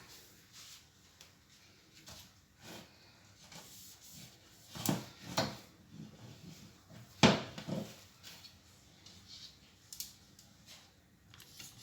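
Scattered knocks and clatters of fridge shelves, drawers and containers being handled and set down during cleaning, with two louder knocks about five seconds in and the loudest one about two seconds later.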